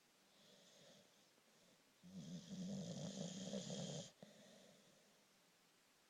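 A sleeper snoring: a faint breath about half a second in, then one louder, fluttering snore lasting about two seconds that cuts off abruptly.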